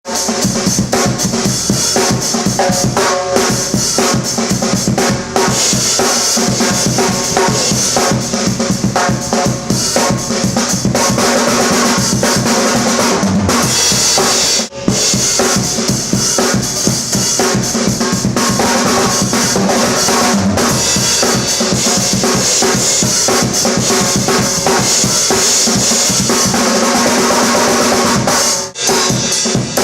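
A drum kit played continuously with dense, fast strokes, pausing briefly about halfway through and again near the end.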